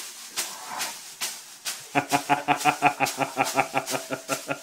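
Leafy sauna whisk (venik) slapping against a dog's body about twice a second. From about two seconds in, a steady-pitched sound pulsing about eight times a second runs under the slaps and becomes the loudest thing.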